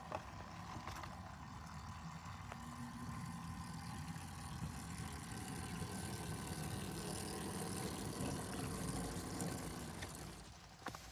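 Small locomotive's motor and drive running with a steady low hum, building a little, then dying away about ten and a half seconds in.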